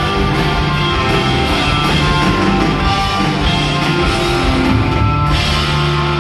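A live rock band plays an instrumental passage on electric guitars, bass and drums, loud through an arena PA and picked up from the stands.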